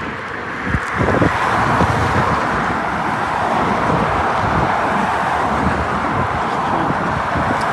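Loud steady rushing noise of outdoor machinery or traffic, with footsteps on asphalt.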